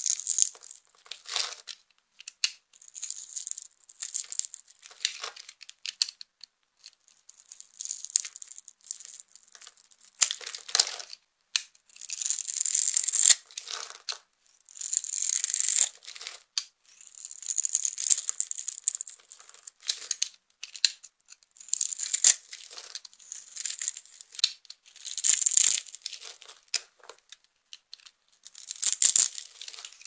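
A utility knife blade cutting through dry bar soap that has been scored into a grid, the small cubes crunching and crackling off the bar with each stroke. Strokes of about a second each, repeated with short pauses.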